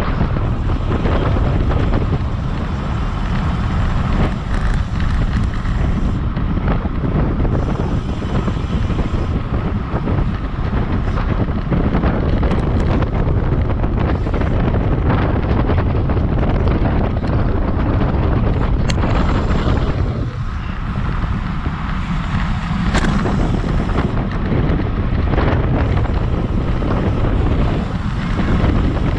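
Wind rushing over the microphone of a GoPro on a racing bicycle moving at about 25 to 28 mph: a loud, steady roar heaviest in the low end. A couple of faint clicks come through in the second half.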